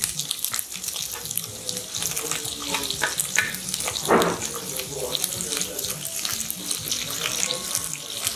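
Chopped red onions sizzling in hot oil in a frying pan: a steady crackling hiss as they are scraped in from a bowl and stirred with a wooden spatula, with a brief louder scrape about four seconds in.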